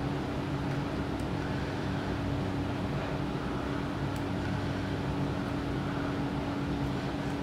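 Steady mechanical hum with one unbroken low tone.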